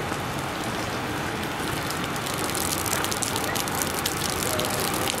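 Steady rain falling, with a dense crackling patter of drops that grows stronger about halfway through.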